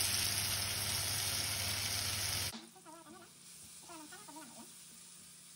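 A frying pan of apple pieces sizzling in butter and brown sugar, the hob just switched off. The sizzle cuts off suddenly about two and a half seconds in, leaving a much quieter stretch.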